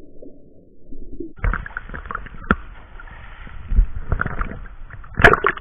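Seawater sloshing and splashing close to the microphone. It is muffled for about the first second and a half, then clearer, with irregular surges and a couple of sharp knocks.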